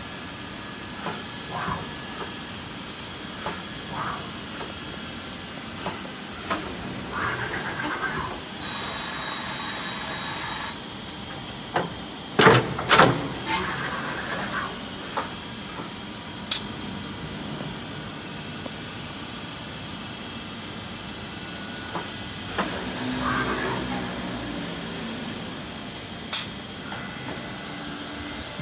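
Steady hiss of machine-shop noise around a CNC drilling center, broken by a few sharp metallic knocks, the loudest a pair about halfway through. There is also a brief high, steady whine lasting about two seconds.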